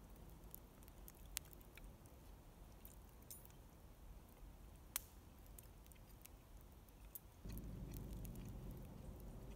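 Very quiet eating sounds: faint chewing and scattered light clicks of a fork on a plate, with two sharper clicks. A low rumble comes up about seven and a half seconds in.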